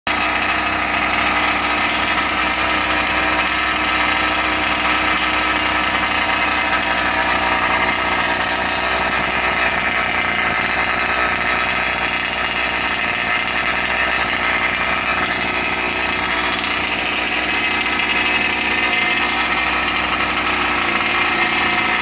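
Rovan 71cc two-stroke petrol engine of a 1/5-scale Baja RC buggy idling steadily through its tuned expansion pipe.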